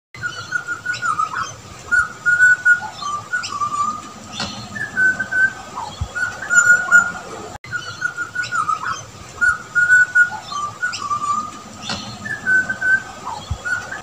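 Butcherbird calling: a run of short, clear whistled phrases, some notes gliding down in pitch, with a brief break a little past halfway.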